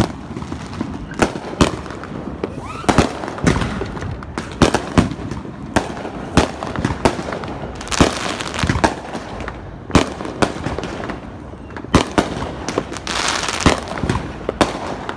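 Fireworks going off: sharp bangs at irregular intervals, roughly one or two a second, with a stretch of denser crackling near the end.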